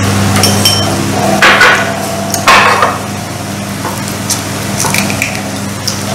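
Chopsticks clicking and tapping against porcelain rice bowls and plates while people eat, with two louder short noisy stretches about one and a half and two and a half seconds in, over a steady low hum.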